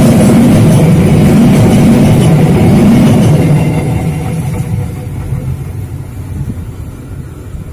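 Passenger train coaches rolling past at close range, a loud rumble of steel wheels on the rails. It fades about three and a half seconds in, as the last coach passes and the train draws away.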